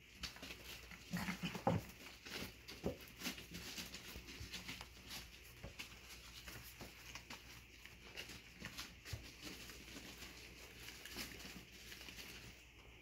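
Doodle puppies scrabbling around a whelping pen: paws and claws pattering and clicking on quilted pee pads and wood pellet litter, with scattered small taps and rustles. A short louder sound stands out about a second and a half in.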